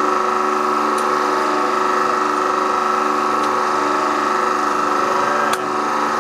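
Hydraulic press pump running with a steady hum and whine while the ram presses down on a plastic figurine. A few sharp cracks come through as the figure gives way: about one second in, around the middle, and near the end.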